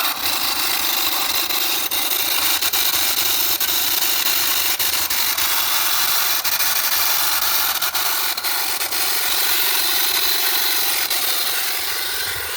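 Home-made 12-volt mini compressor, driven by two small electric motors, running steadily as it pumps air into a tyre, with a steady whine over its rattling hum.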